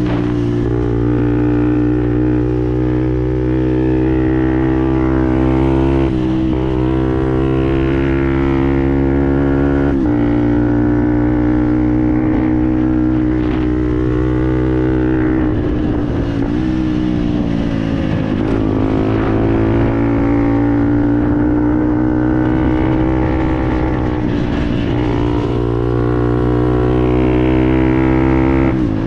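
Fantic Performance 125 Motard's single-cylinder four-stroke engine running through a GPR aftermarket exhaust while riding, holding a steady high note. Its pitch dips and climbs back several times as the revs change.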